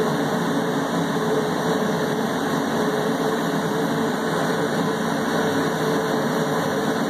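Steady hum of lab machinery and ventilation: an even rushing noise with one constant mid-pitched tone held through it, unchanging throughout.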